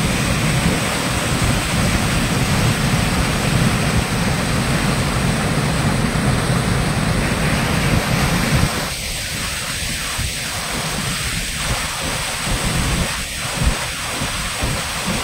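Muddy floodwater pouring over the edge of an open stone well and plunging into it: a loud, steady rush. It gets a little quieter and thinner about nine seconds in.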